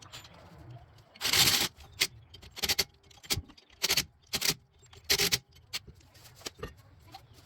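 Metal clanks and scrapes of tools and rear drum brake parts being handled while the brakes are adjusted: about a dozen sharp knocks at an uneven pace, the loudest a longer scrape about a second and a half in.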